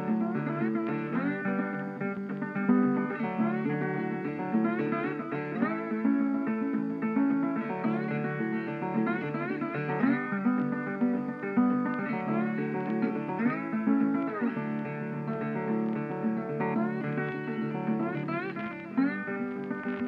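Background instrumental music: a melody of plucked guitar notes over changing chords, at a steady level.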